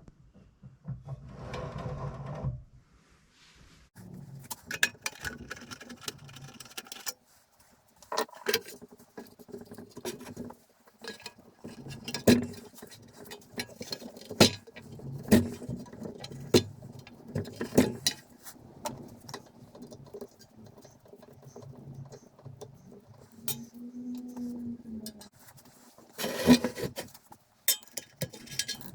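Metal parts and hand tools clinking, tapping and knocking irregularly while a small bench drill press is handled and taken apart.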